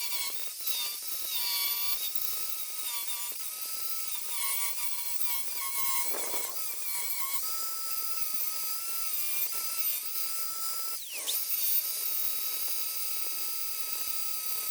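Grinder running against steel, its high motor whine wavering in pitch as it is pressed on and eased off, grinding down weld beads on a patched body panel.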